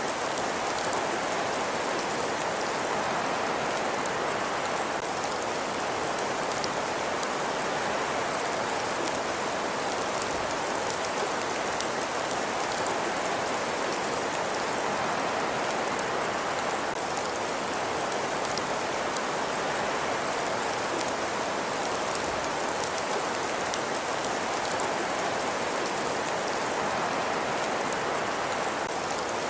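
Steady, even hiss of an ambience track with faint scattered ticks throughout, like rain on a surface or a fire crackling softly.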